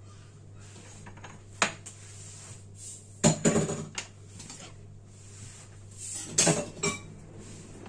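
Kitchen dishes and utensils clinking and knocking: a single knock about a second and a half in, a cluster of clatters around three seconds in, and another cluster about six seconds in, over a low steady hum.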